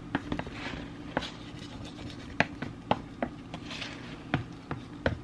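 Flat wooden spatula pressing and smoothing raw meatloaf mixture into a metal loaf pan: soft scraping, with about half a dozen light, sharp taps of the wood against the pan.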